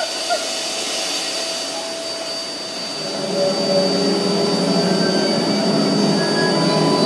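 A steady rushing, hissing noise with a thin high steady tone, joined about three seconds in by a louder low droning hum.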